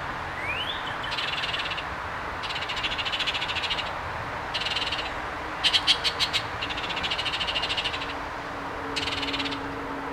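Short, rapidly pulsed high trills, repeating every second or two with some overlapping, loudest just before six seconds in. Two quick rising whistles come right at the start.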